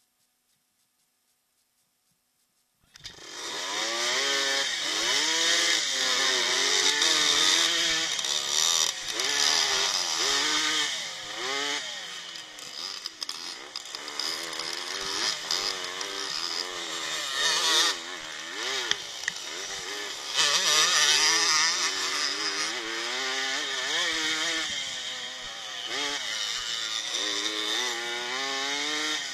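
Vintage dirt bike engine heard from an onboard camera, coming in abruptly about three seconds in and then revving hard, its pitch climbing and dropping over and over as it accelerates and eases off over rough ground, with heavy wind hiss.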